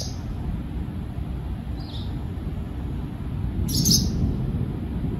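Long, unbroken low rumble of rolling thunder from a severe thunderstorm, with a few short bird chirps over it, the loudest near the end.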